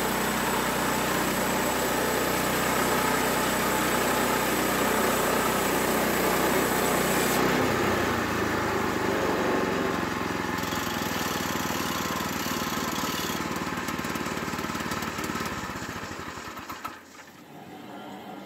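Gasoline engine of a portable bandsaw sawmill running steadily. Its note changes about seven seconds in, and it dies away near the end.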